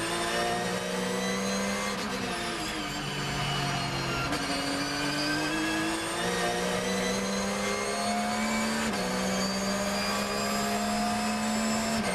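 Porsche 911 GT3 R's flat-six racing engine heard from inside the cockpit. It holds lower revs through a corner, then accelerates hard, the pitch climbing and dropping with an upshift about every three seconds.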